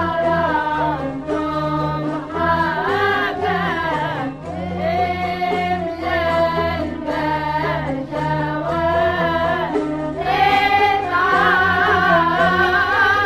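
A muwashah in maqam al-Husseini Niriz: Arabic classical singing in long, held melodic phrases over a sustained low accompaniment. A louder, higher phrase begins about ten seconds in.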